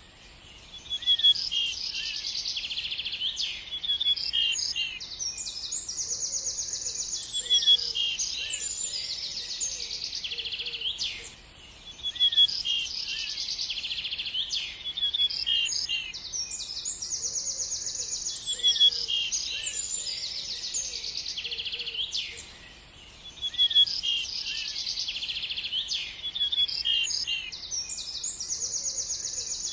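Birds singing: a busy mix of high chirps and rapid trills. The same short stretch of song repeats about every eleven seconds, with a brief lull before each repeat.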